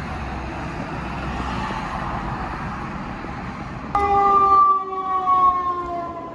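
Street traffic noise, then about four seconds in a fire department ambulance's siren starts suddenly and loudly as it passes, its pitch sliding slowly downward.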